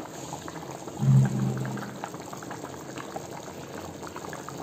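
Thick potato curry bubbling in a pan, a steady simmer full of small bubble pops. A short low hum about a second in is the loudest sound.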